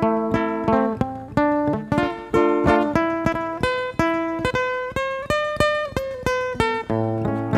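Acoustic guitar played solo: a slow melody of plucked single notes, each ringing on after it is struck.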